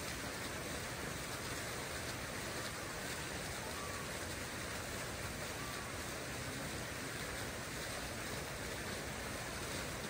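Water fountain running: a steady splash of falling water.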